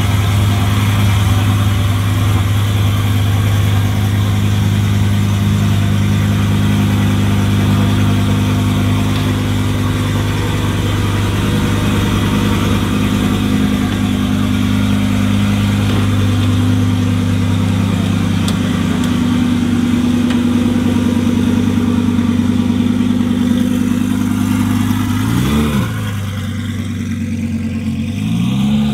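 Twin-turbo Audi R8 V10 Plus 5.2-litre V10 idling steadily. About 25 s in it revs once in a quick blip, and near the end it revs up again.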